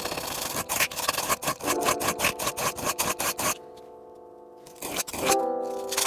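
Quick, even rubbing or scraping strokes, about five a second, stopping about three and a half seconds in, over sustained background music tones.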